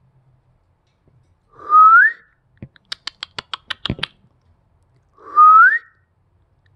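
African grey parrot giving a short rising whistle twice, a few seconds apart, with a quick run of about ten sharp clicks between the two whistles.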